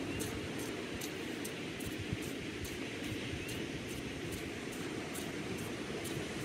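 Small ocean waves washing onto a sand beach: a steady low surf wash. A faint, even high ticking runs through it, about two to three ticks a second.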